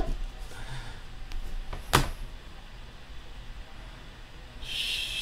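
Hands handling trading cards and clear plastic card holders on a table: a sharp tap at the start and another about two seconds in, then a short rustling hiss near the end.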